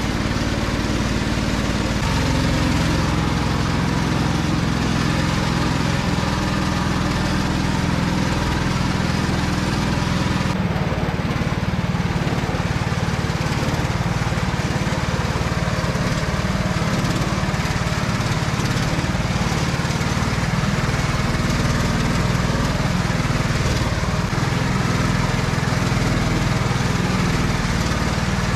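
Homemade karakat's engine running steadily as the vehicle drives through boggy ground, its exhaust going through a Zhiguli car muffler mounted on the front fender.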